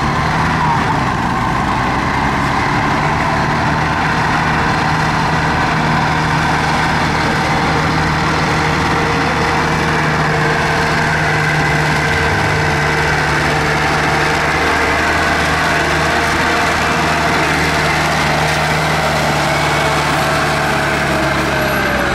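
LKT 81 Turbo forestry skidder's turbocharged diesel engine running steadily as the skidder drives over dirt, with a whine that falls in pitch near the end.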